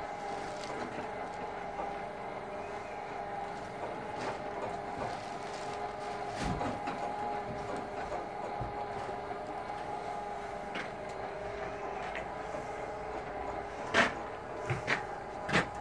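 A motor running steadily at one pitch, with three sharp knocks near the end.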